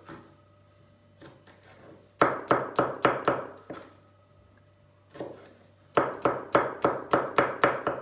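Chef's knife chopping garlic cloves on a wooden cutting board. Two quick runs of sharp knife strikes, about five a second: the first starts about two seconds in, and the second comes near the end.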